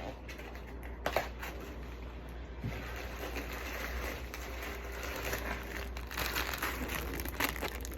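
Plastic food packaging crinkling and rustling as it is handled and opened, with a light click about a second in.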